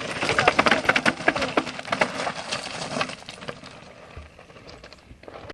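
Mountain bike descending a rocky trail: tyres crunching and rattling over loose stones and gravel in a dense run of clicks and knocks, which fades after about three seconds as the bike moves away.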